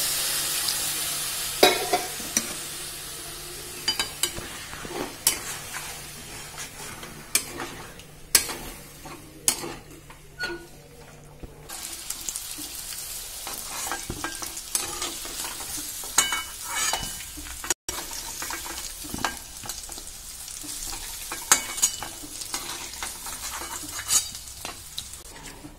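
Food sizzling in hot oil in an aluminium kadai, with a metal spatula scraping and clicking against the pan many times. The sizzle is loudest in the first couple of seconds, right after hot water has gone into the pan, and then settles to a lower frying hiss.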